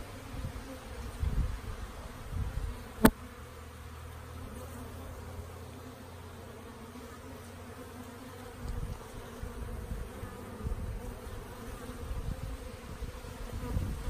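Honeybees buzzing at a busy hive entrance, a steady hum of heavy foraging traffic. A single sharp click sounds about three seconds in, and low rumbling on the microphone comes and goes.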